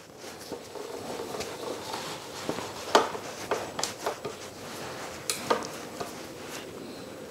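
Scattered light metallic clicks and taps as a T-handle hex wrench turns and loosely runs down the bolts of a motorcycle pannier rack mount.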